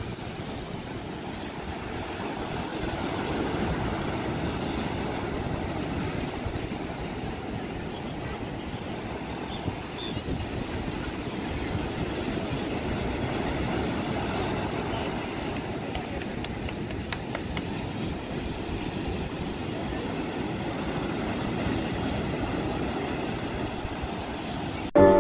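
Sea surf: waves breaking and washing up a sandy beach, a steady low rushing rumble that swells and eases.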